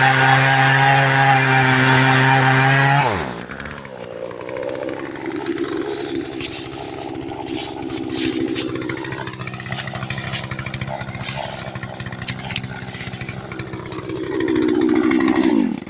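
Gas chainsaw running at full throttle cutting into a white oak log, dropping to idle about three seconds in. It idles for around ten seconds, revs up again near the end, and then cuts off abruptly.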